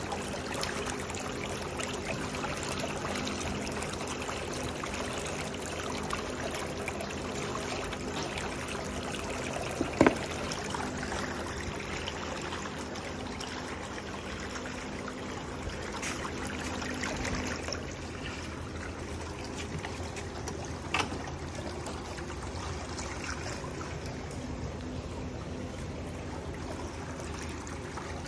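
Pedicure spa chair's whirlpool jet churning water steadily in the foot basin, with a sharp click about ten seconds in and another about twenty seconds in.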